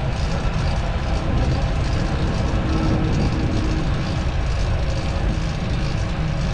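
Steady, loud traffic-like noise with a heavy low rumble, and a faint held tone about two seconds in.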